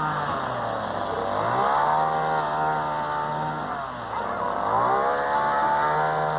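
A small engine running, its pitch dropping and climbing back twice as its speed sags and picks up again.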